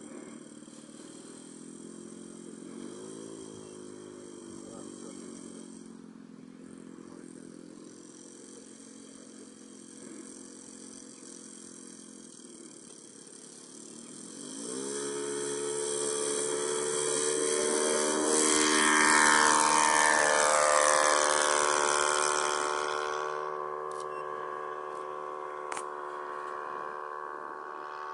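Radio-controlled Pilatus PC-21 scale model airplane's motor and propeller running at low throttle on the ground, then opened up about 14 s in, with a quick rise in pitch for the takeoff run. The sound is loudest a few seconds later as the plane passes by, its pitch falling, then fades as it climbs away.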